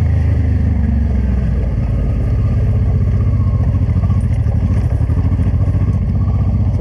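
Honda Transalp 600's V-twin engine running steadily at low speed, heard from the saddle as the motorcycle rides along a dirt track.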